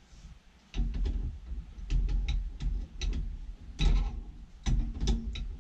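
Irregular sharp clicks and light knocks from hand work on metal pipe fittings, over a low rumble, starting after a quiet first moment.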